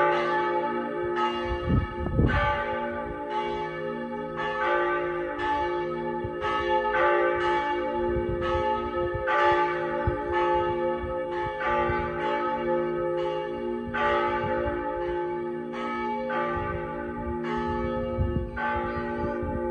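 A reduced set of Pershore Abbey's church bells ringing in an even, steady sequence, about two strokes a second, each stroke's ringing overlapping the next.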